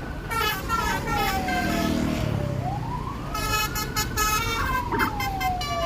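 Police escort siren wailing slowly, its pitch sliding down over a couple of seconds, then back up and down again. Over it a tour bus's multi-tone horn sounds a run of short notes, mostly in the second half.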